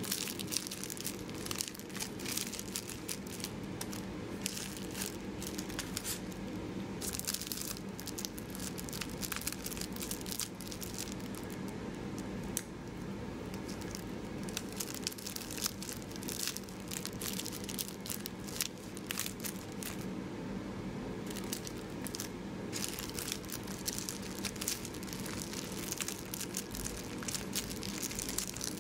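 Plastic onigiri wrapper film crinkling and crackling in the hands as rice balls are wrapped and pressed into their triangular packets, in irregular handling bursts, over a faint steady low hum.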